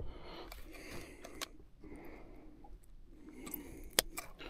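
Faint handling noise as a bass is weighed on a handheld digital fish scale: soft rustling with a few sharp clicks and taps, the loudest about four seconds in.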